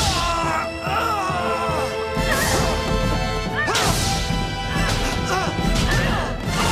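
Fight-scene sound effects over dramatic background music: a handful of sharp hits and crashes, one every second or two, with sparks bursting off a Power Ranger suit.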